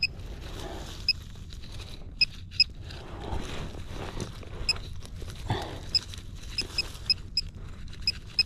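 Short electronic beeps from a handheld metal-detecting pinpointer at irregular intervals, coming a little closer together toward the end as it closes in on a buried metal target. Underneath, gloved hands scratch and scrape through loose dirt and leaf litter.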